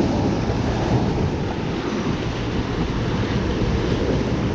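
Sea surf washing against shoreline rocks, with wind buffeting the microphone: a steady rushing noise.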